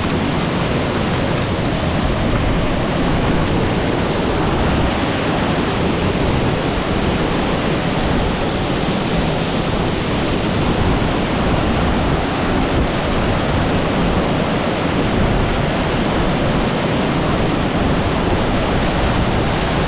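Waterfall pouring close by: a steady, loud rush of falling water that does not let up.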